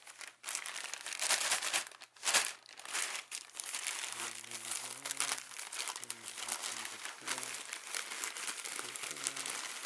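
A mail package being opened by hand: packaging crinkling and rustling in irregular bursts, with some tearing, and a sharper crackle a little over two seconds in.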